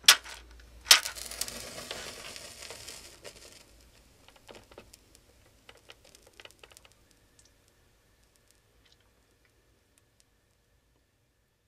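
A wooden match struck twice; on the second strike it catches and flares with a hiss lasting a couple of seconds, then burns with faint crackles that die away.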